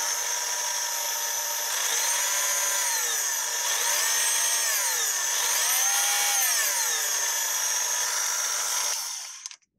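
Proxxon FBS 220/E mini drill/grinder motor running with a steady whine, its pitch falling and rising several times as the speed control is turned, then switched off and spinning down just after nine seconds. It runs smoothly now that the faulty diac in its speed-control board has been replaced.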